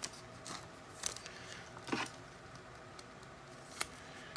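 Trading cards being handled one after another: a few faint, sharp clicks and slides of card stock, spaced unevenly.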